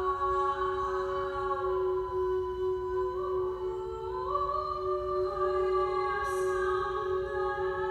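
Slow, wordless vocal music: a single drone note is held steady throughout, while sustained voices above it move slowly from one long held pitch to the next.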